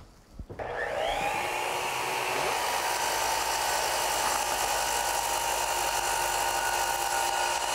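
Electric miter saw starting up about half a second in, its motor whine rising quickly and then running steadily as the blade is brought down to cut a cedar 2x6 railing cap.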